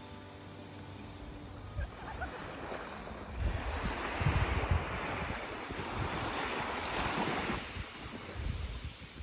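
Small waves washing onto a sandy beach, swelling twice as waves come in and draw back, with wind buffeting the microphone in low gusts.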